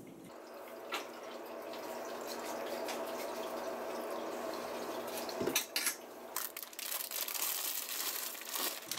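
Vinegar poured from a bottle into a metal spoon and over a duck in a pot, a steady trickling for about five seconds. From about five and a half seconds in come irregular clicks and crinkles of a plastic bag being handled.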